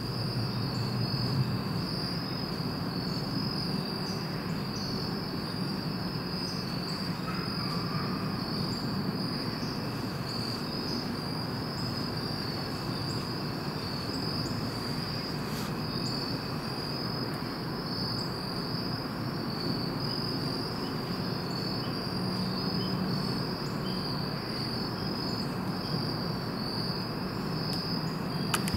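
A chorus of insects trilling steadily at one high pitch, over a low, even rumble.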